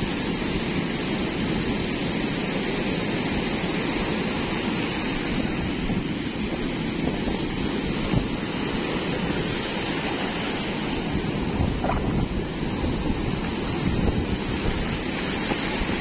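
Sea waves breaking and foamy surf washing up over the sand, a steady rush of water, with wind buffeting the microphone.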